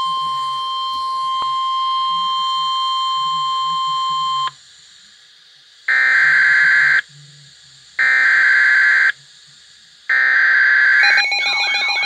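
Weather-radio emergency alert broadcast: the steady high attention tone sounds and cuts off suddenly about four and a half seconds in. Three one-second bursts of digital alert-header data follow, a second apart. Near the end a warbling electronic alarm starts up.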